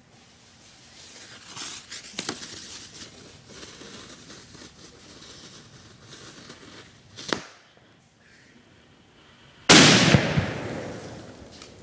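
A Dragon Egg firework burning and hissing, with sputters, for several seconds, and one sharp pop about seven seconds in. About ten seconds in it goes off in a sudden loud blast that fades over about two seconds.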